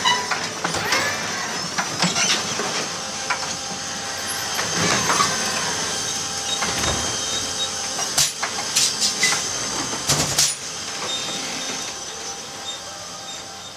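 Electric Heil side-loading garbage truck working: a steady electric whine from its motors and hydraulics, with several sharp metallic clanks from the automated arm gear about eight to ten seconds in, then growing fainter as the truck pulls away.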